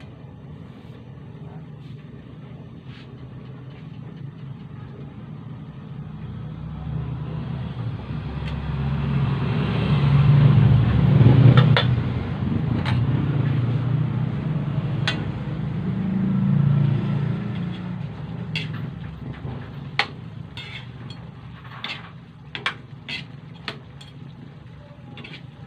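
A low rumble swells over several seconds, loudest about halfway through, then fades away. In the last several seconds a spatula knocks and scrapes against a metal pan of chicken adobo and potatoes as it is stirred, a run of sharp clicks.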